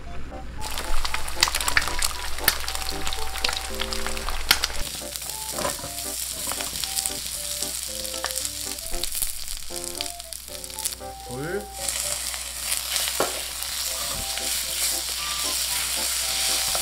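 Sliced onion, carrot and zucchini stir-frying in a hot carbon-steel wok, sizzling steadily from just under a second in, with a wooden spatula clicking and scraping against the pan as it tosses them.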